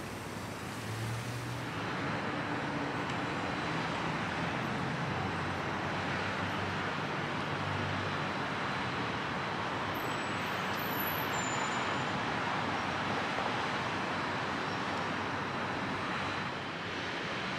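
City street traffic: a steady rush of passing vehicles' tyres and engines, with a low engine hum under it for the first several seconds.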